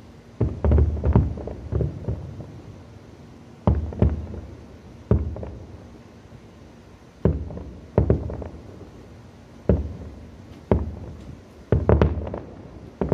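Distant aerial firework shells bursting: more than a dozen deep booms at irregular intervals, each trailing off over about a second, with a cluster of quick bursts near the start and another near the end.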